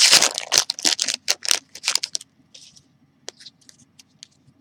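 Trading-card pack wrapper being torn open and crinkled loudly for about two seconds, then a few faint clicks and taps as the cards are handled.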